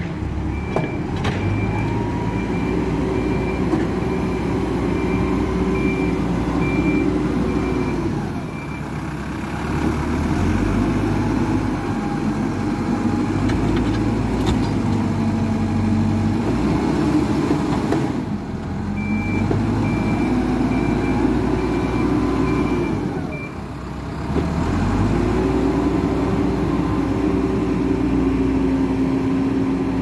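Hidromek 102B backhoe loader's diesel engine revving up and dropping back over and over as it works through its loading cycles. Its reversing alarm beeps steadily in two stretches, near the start and again about two-thirds of the way through.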